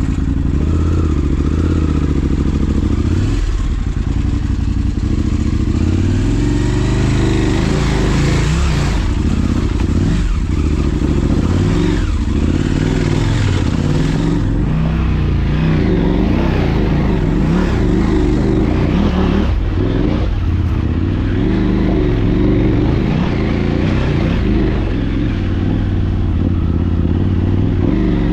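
Motorcycle engine running loudly and steadily, its pitch rising and dipping a little as the throttle changes.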